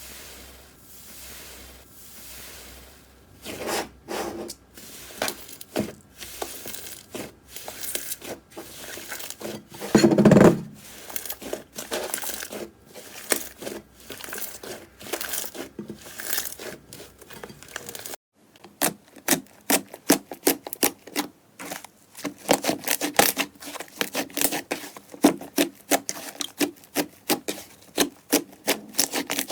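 Hands squishing, poking and stretching slime, making irregular sticky clicks and crackles, with one louder, deeper squish about ten seconds in. After a cut about eighteen seconds in, it turns to quick runs of sharp pops.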